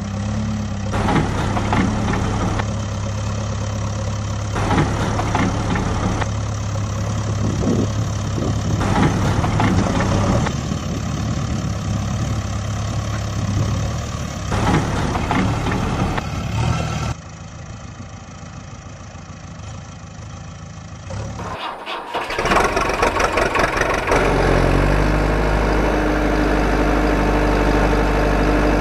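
Heavy-vehicle engine sound running steadily, with louder surges every few seconds, accompanying a toy excavator and dump truck. About 17 seconds in it drops away, and about 22 seconds in a different engine sound starts up and runs steadily.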